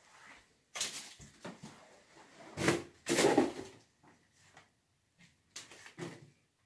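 Handling and movement noise: a few short, irregular knocks and rustles, the loudest about three seconds in.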